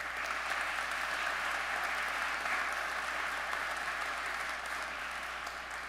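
A congregation applauding: steady clapping that eases off gradually near the end.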